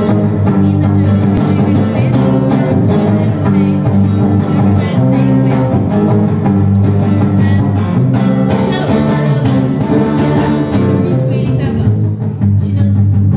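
Acoustic guitar strummed steadily in a continuous chord pattern, playing an original song at an open mic.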